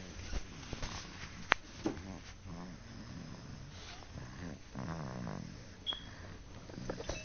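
Snoring: low, rasping snore breaths, two longer ones in the middle. A sharp click about a second and a half in is the loudest sound.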